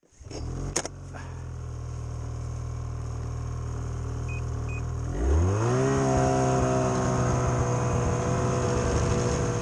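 Snowmobile engine running steadily, then revving up about five seconds in and holding at a higher pitch.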